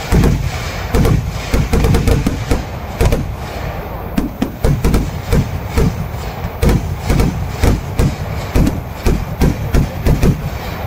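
Kerala temple-festival fireworks (vedikettu) going off in a rapid, irregular string of bangs and deep thuds, several a second.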